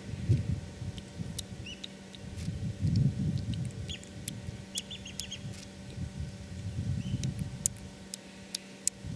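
Birds calling in short, repeated chirps, with a small quick cluster about four seconds in. Under them is an irregular low rumbling noise that swells about three seconds in and again near seven seconds, and a few scattered sharp clicks.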